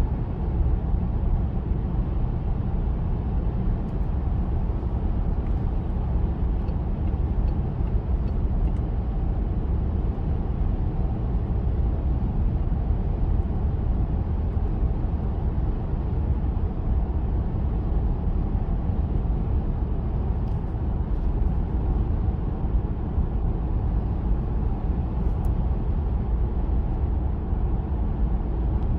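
Cabin noise inside a moving Peugeot 408 with the 1.2 PureTech three-cylinder turbo petrol engine: a steady low rumble of road, tyre and engine noise, even throughout.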